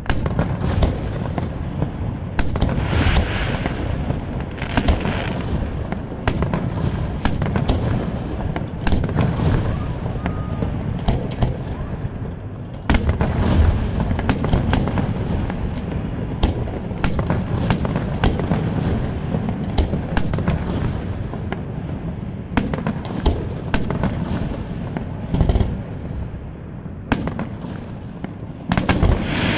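Aerial fireworks shells bursting in close succession: a dense run of sharp bangs and crackles over a continuous low rumble of booms.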